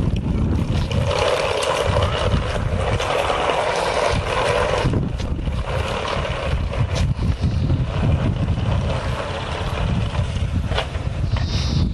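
Wind buffeting an outdoor camcorder microphone: a steady, low, flickering rush of noise.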